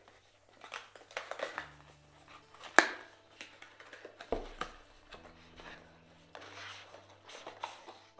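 Cardboard product box being handled and opened by hand: scattered light taps, scrapes and card rustles as a flap is peeled back and the inner box slid out of its sleeve, with one sharper click about three seconds in.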